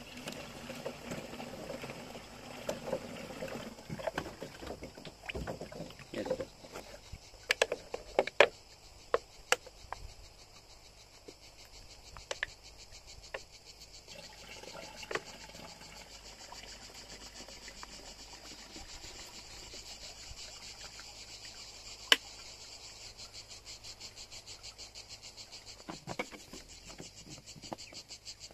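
Water being poured into a plastic backpack sprayer tank, splashing and gurgling, with a few sharp knocks, for about the first ten seconds. After that, steady insect chirping carries on alone, pulsing evenly near the end.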